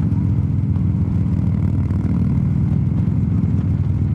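Harley-Davidson V-twin engine running steadily at highway cruising speed, a low, even engine sound.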